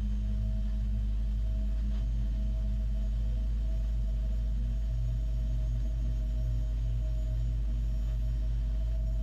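A steady low drone with a few faint held higher tones over it, unchanging and without any sudden sounds.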